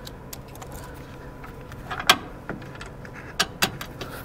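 Small metal clicks and clinks of a socket tool and a 10 mm bolt as the coolant bottle's mounting bolt is started into its threads by hand. The sharpest click comes about two seconds in, with two more about a second later.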